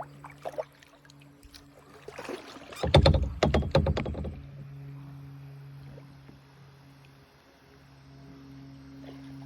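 Water splashing and sloshing hard for about a second and a half, a few seconds in, over a steady low hum.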